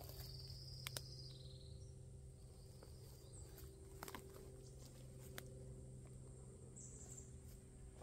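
Quiet woodland with a few soft clicks and snaps of footsteps on twigs and forest litter, and a faint high chirp near the start and another near the end.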